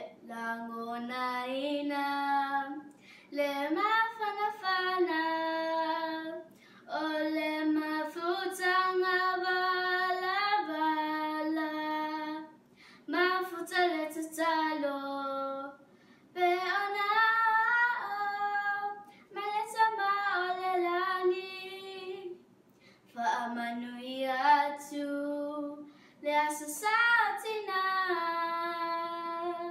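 A young girl singing solo and unaccompanied, in phrases of long held notes with short pauses for breath between them.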